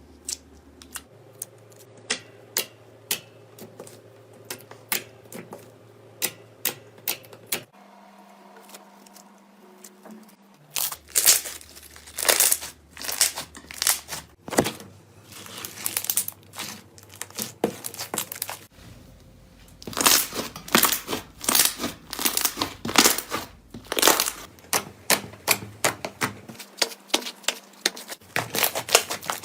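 Slime being squeezed and worked by hand, giving dense crackling and popping clicks, louder in the second half, across several spliced clips.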